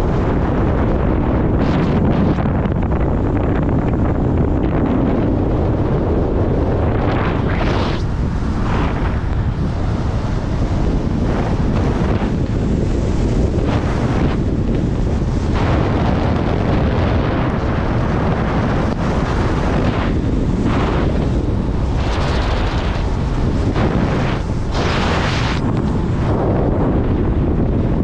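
Heavy wind buffeting a camera microphone held out of a moving car on a monopod: a loud, steady rumble with surges of hiss every few seconds, strongest near the end.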